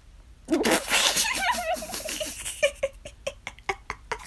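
A person bursts out laughing about half a second in, then keeps laughing in short, rapid bursts of about three a second.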